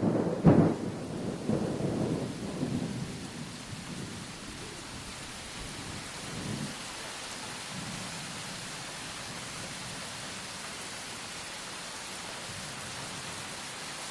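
Thunderstorm sound effect: a sharp thunderclap about half a second in, with rolling rumbles that die away over the next several seconds. Steady rain hiss continues after the rumbles fade.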